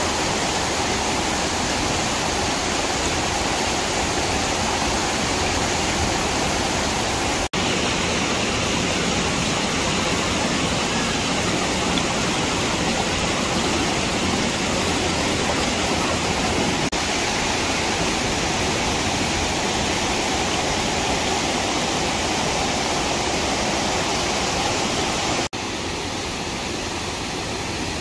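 Steady rush of water from Catrigg Force, a waterfall dropping about six metres into a plunge pool. The sound breaks off for an instant twice, and after the second break it is a little quieter.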